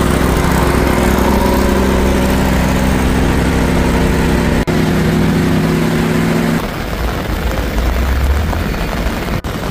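A motor engine running steadily under a loud, dense hiss. About two-thirds of the way through the sound changes abruptly to a rougher hiss with a low rumble.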